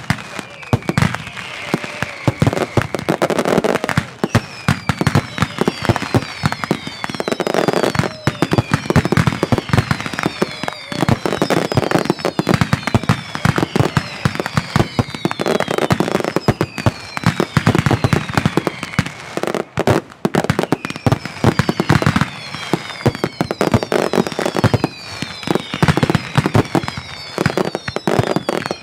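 Mascletà firecracker barrage: a dense, rapid, unbroken run of loud bangs. High whistles falling in pitch recur every couple of seconds.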